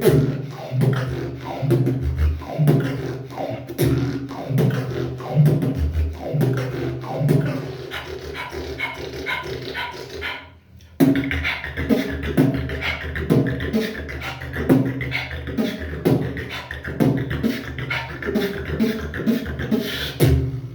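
Solo beatboxing: a steady beat of mouth-made kick and snare clicks over a low hummed bass line, with the echo of a bathroom. The beat breaks off briefly about ten and a half seconds in, then starts again.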